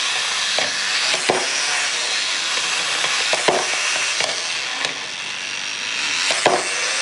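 Clockwork wind-up toys running on a tabletop: a steady whirring buzz of their spring motors with irregular plastic clicks and knocks as they shuffle about.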